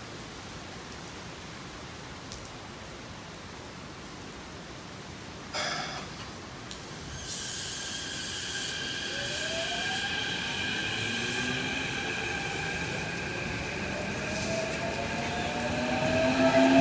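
Keikyu electric train picking up speed, its traction motors whining in several tones that climb steadily in pitch and grow louder toward the end. A brief pitched toot sounds about five and a half seconds in, before the whine starts.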